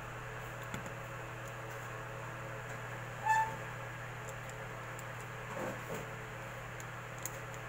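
Steady low electrical hum over a background hiss, with one short, slightly falling pitched chirp about three seconds in.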